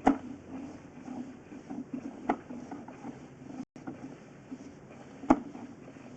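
A sewer-scope camera and its push rod being pulled slowly back through a drain pipe: low rubbing with scattered small clicks, and three sharp knocks, one right at the start, one a little after two seconds in and the loudest about five seconds in.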